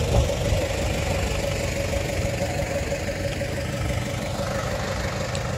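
Off-road 4x4 engine idling steadily, with a constant mid-pitched hum.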